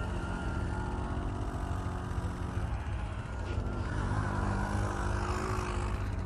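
ATV engine running with a deep rumble, holding steady revs, then easing off and picking up again about three seconds in.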